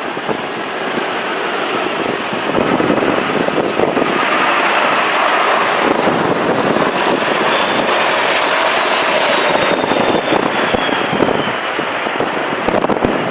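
Jet airliner passing close on its landing approach. Engine noise swells over the first few seconds, carrying whining tones that glide slowly in pitch, then eases off near the end.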